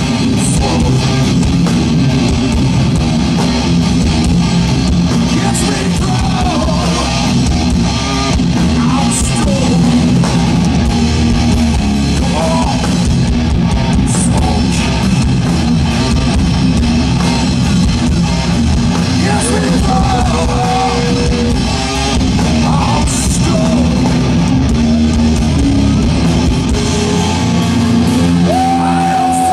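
Heavy metal band playing live: distorted electric guitars, bass and drum kit, loud and unbroken, with the singer's vocals coming in at times.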